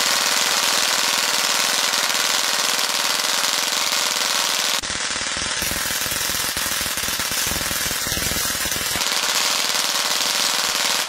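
Belt-fed .22 LR machine gun firing long, continuous bursts: a very fast, unbroken stream of shots as it runs through its belt, cutting off sharply at the end.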